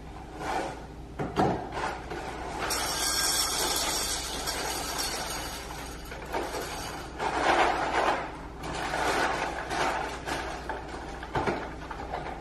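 Rustling and rattling as a cereal box filled with dry dog kibble is handled and tipped into a bowl, with a crinkly stretch about three seconds in and more rattling of the hard pellets a few seconds later.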